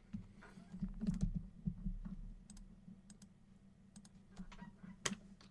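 Scattered light clicks and taps at an irregular pace, with a cluster of soft thumps about a second in and a sharper click near the end.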